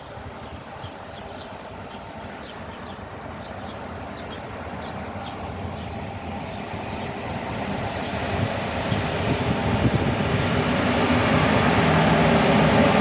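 HŽ series 1141 electric locomotive hauling a train of freight wagons as it approaches, its running noise and motor hum growing steadily louder.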